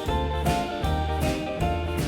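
Background music with a steady beat of about two strokes a second under held instrumental notes.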